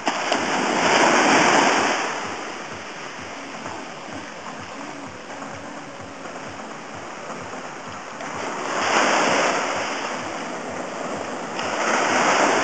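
Small waves breaking and washing up a sandy beach at the water's edge, the surf swelling loudly three times: near the start, about nine seconds in, and near the end.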